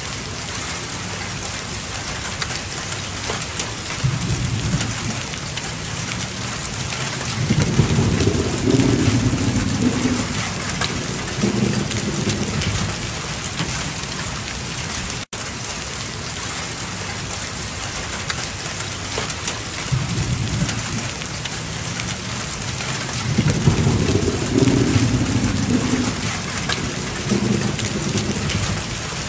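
Hail and rain pelting asphalt pavement: a dense, steady hiss of countless small impacts. Low rumbles swell and fade a few times.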